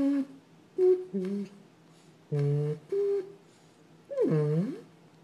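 Dog vocalising: a series of short pitched whining, groaning noises, about six in all, ending with a longer one that swoops down in pitch and back up.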